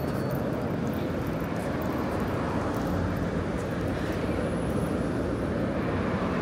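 Steady traffic noise of a busy city street: vehicle engines and tyres running past in a continuous low rumble.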